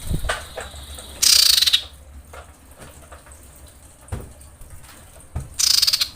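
Female common iora giving two harsh, buzzy rattling calls about four seconds apart, each lasting about half a second. It is the call of a female in breeding condition calling to a male.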